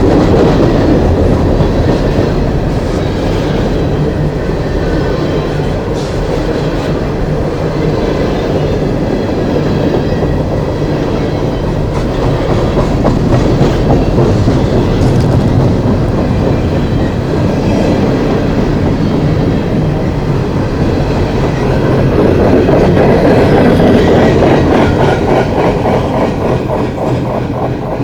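Long coal train's cars rolling past on the main line, a steady loud rumble of steel wheels clacking over the rail joints.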